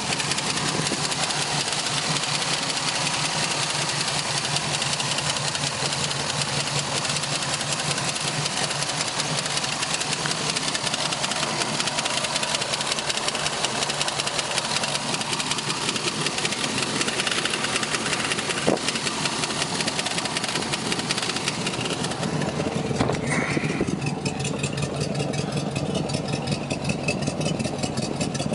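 Volvo Penta 5.7GSi fuel-injected V8 marine engine running steadily at idle. One sharp click about two-thirds of the way through, and the sound changes a little near the end.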